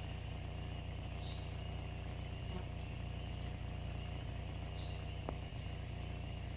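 Rural roadside ambience: a steady low hum with short, high chirps every second or two, and a single click about five seconds in.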